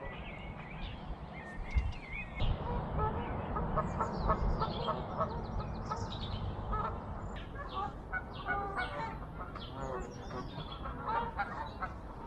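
A flock of geese honking, many short calls in quick succession starting about two seconds in, over a low steady rumble.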